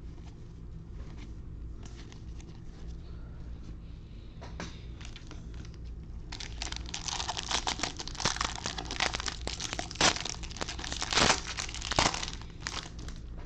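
Plastic-foil trading-card pack wrapper crinkling as it is handled and torn open. There are a few faint clicks at first, then dense crinkling from about halfway through until near the end.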